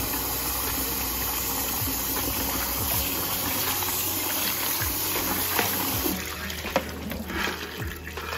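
Kitchen tap running hard into a steel pot full of water in a sink, a steady gush. In the last couple of seconds the flow gets uneven, with splashing and small knocks as hands swish the crabs around in the pot.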